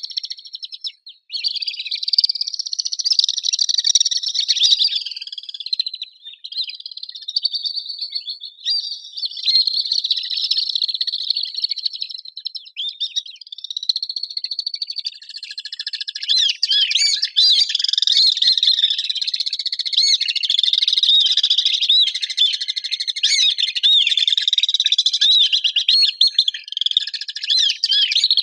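A flock of swifts screaming: many shrill, high-pitched calls overlapping one another, growing denser in the second half.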